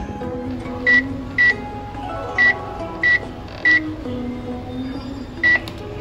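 Keypad beeps of a Dimension 4 combination microwave oven as its buttons are pressed to program a convection roast: six short high beeps, unevenly spaced, over background music.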